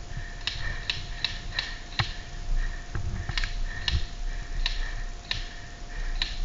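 Airsoft guns firing single shots: about ten sharp, irregularly spaced snapping cracks over a faint steady hum.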